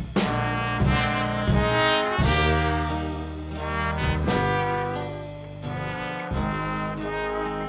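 Background music with held brass-like notes over a steady bass line.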